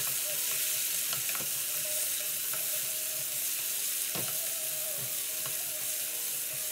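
Cut green beans sizzling in oil in an aluminium wok, stirred with a wooden spatula that scrapes and knocks against the pan a few times, the sharpest knock about four seconds in.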